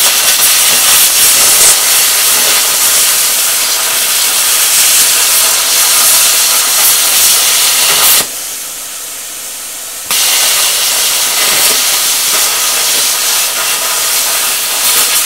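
Plasma cutter (P80 torch on a Cut 40 machine) cutting a rusty steel tabletop: a loud, steady hiss of the arc and air jet, the pilot arc having struck on the dirty surface without the torch touching it. About eight seconds in it drops to a softer hiss for about two seconds, then comes back at full strength.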